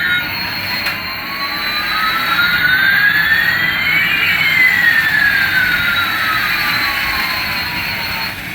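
Jet plane engine sound effect: a steady noisy roar with a whine that rises for about four seconds and then falls back. It starts and stops abruptly.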